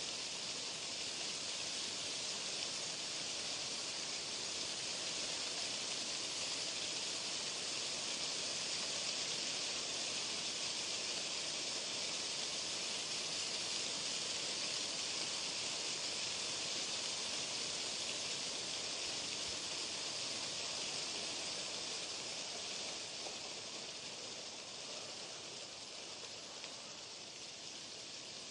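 Steady hiss of white noise, brightest in the upper range, easing slightly softer over the last few seconds.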